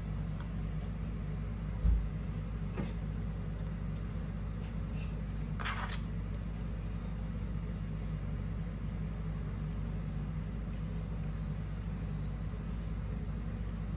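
A steady low hum, with one soft low thump about two seconds in and a few faint light scrapes or clicks.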